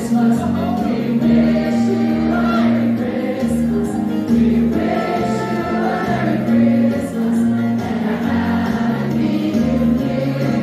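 A large group of crew members singing a Christmas carol together as a choir, over instrumental accompaniment with a steady, stepping bass line.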